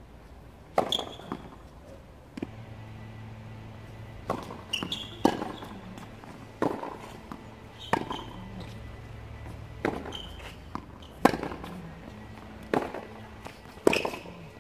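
Tennis rally on a hard court: sharp pops of racket strings striking the ball and the ball bouncing on the court, about a dozen impacts going back and forth, the nearer player's shots loudest.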